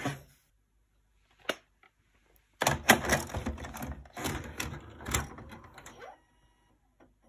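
VHS video recorder taking in a cassette: a single click, then about three and a half seconds of clicking and clattering from the loading mechanism as it draws in and threads the tape, with a short rising motor whine before it stops.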